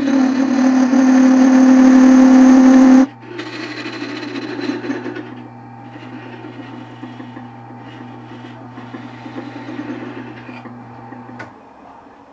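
Wood lathe turning an Osage orange blank, a turning tool cutting the spinning wood. A loud, heavy cut with a strong low tone for about three seconds, then lighter, scratchier cuts over the machine's steady hum, all stopping about a second before the end.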